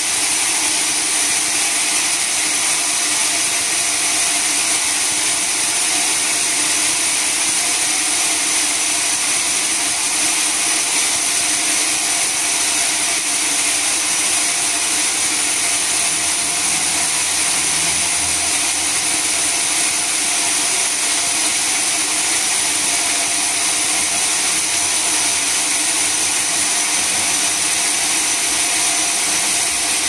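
Sawmill saw running steadily, a continuous high-pitched whine over a hiss, without a break.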